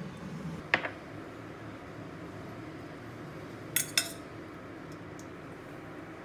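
Metal spoon clinking against a stainless-steel electric hot pot: one sharp clink about a second in, then two quick clinks a moment apart near the middle.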